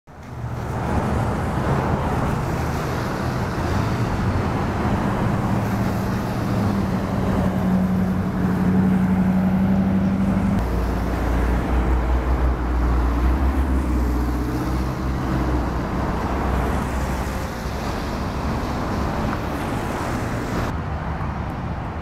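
Road traffic: car engines running and passing, a steady low hum under a hiss of traffic noise, with a deeper, louder rumble for several seconds about halfway through.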